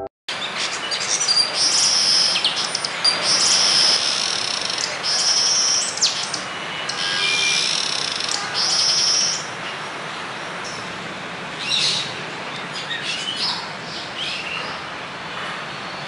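Long-tailed glossy starlings calling with high, rasping calls of about a second each, repeated in a quick series, then thinning to a few scattered calls after about ten seconds, over a steady background hiss.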